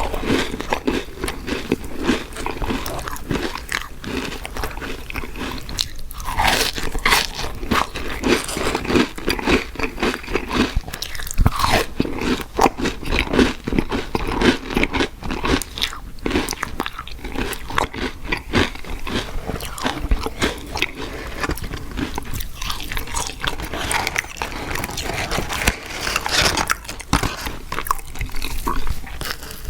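Close-miked eating of fast food: continuous biting, crunching and chewing, a dense irregular run of crisp crackles.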